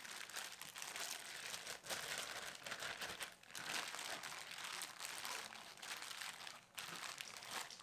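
Faint, continuous crinkling and rustling with many small crackles, the sound of something being handled.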